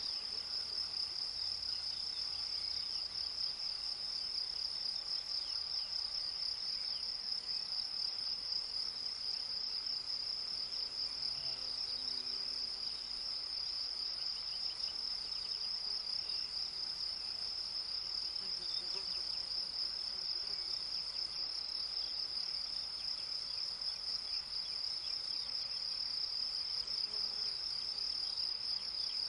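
Meadow insects singing in the grass: one steady, unbroken, high-pitched trill with no pauses.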